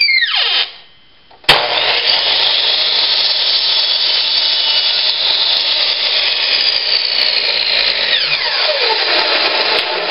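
Electric power tool, sounding like a power saw: a short run winds down at the very start, then it starts abruptly and runs loud and steady with a high whine. About eight seconds in the whine drops steadily in pitch while a rough cutting noise carries on.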